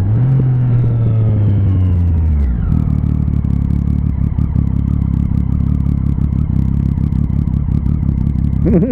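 Motorcycle engine running at steady revs, then the revs fall away about two and a half seconds in as the throttle closes, settling into a lower, rougher rumble as the bike slows for traffic.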